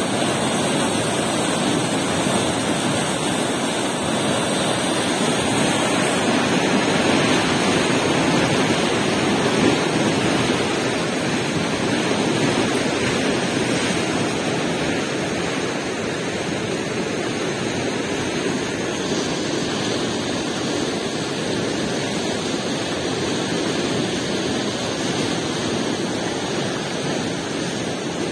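Fast, turbulent river water rushing and churning as white water, a steady loud rush.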